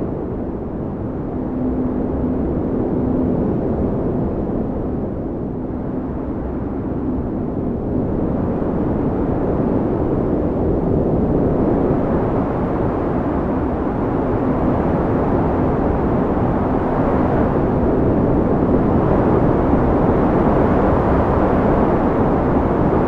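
Winter storm wind blowing hard, a steady low rush that swells and eases slowly in gusts.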